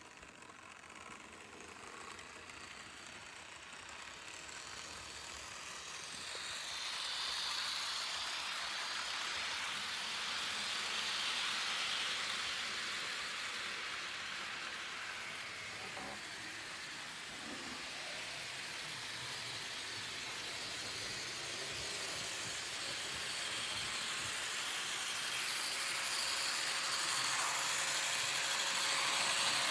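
Lima HO-scale NSWGR C38 model steam locomotive and its passenger coaches running on the layout track: a steady rushing hiss of metal wheels on rail and the small electric motor, getting louder over the first several seconds, easing a little midway and rising again near the end as the train comes close.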